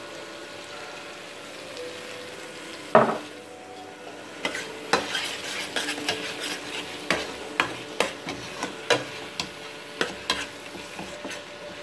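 Metal spoon stirring a frying spice base (tadka) in a stainless steel pot, clinking and scraping against the pot about twice a second over a steady sizzle. One louder knock of the spoon on the pot comes about three seconds in.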